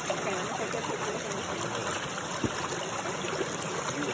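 Steady rush of water from a waterfall, an even, unbroken noise.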